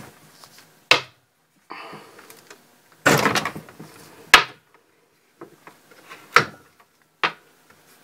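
Control knobs being pulled off their shafts on the front panel of a late-1970s Pioneer stereo receiver: about four sharp clicks and knocks, with short scraping rubs between them.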